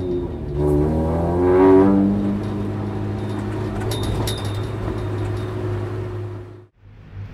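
Honda Civic EK9 Type R's B16B four-cylinder VTEC engine pulling up through the revs with a rising exhaust note, then running at steady revs as the car rolls along. The sound drops out abruptly near the end.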